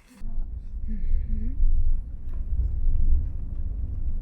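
Loud, steady low rumble, with a few faint sounds above it.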